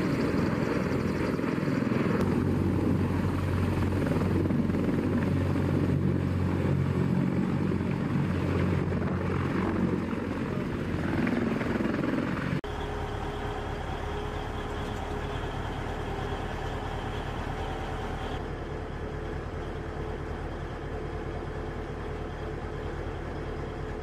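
CH-53 heavy-lift helicopter running close by, a loud dense rotor and turbine noise with heavy low rumble. About halfway it cuts off suddenly to a quieter, steady engine drone with a few held tones.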